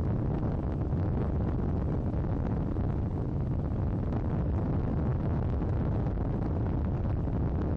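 Heavy, steady wind noise on an action camera's microphone during a motorcycle ride, drowning out the Hunter 350's engine. The microphone has lost its furry wind cover, so the airflow blows out the audio.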